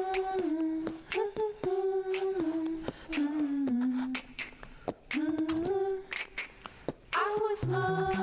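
A cappella theme tune: a voice hums a melody of held notes that step up and down, with short clicks between the notes, and a lower voice joins near the end.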